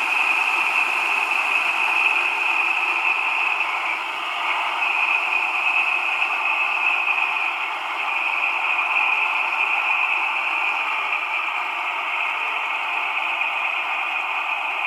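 Maybach MB 16V 652 TB10 V16 diesel engine of a DB class 216 locomotive running at a steady speed, in a recording pieced together from separate clips. It sounds thin, with almost no bass and a strong upper hum, and it dips slightly a couple of times.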